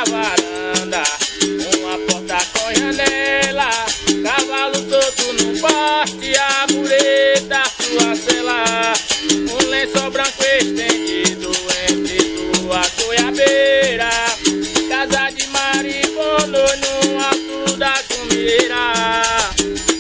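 Upbeat music: a pitched melody over a steady, quick shaker rhythm, with no clear singing.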